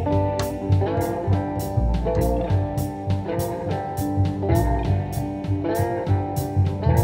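Background music: a guitar track with bent notes over a steady drum beat.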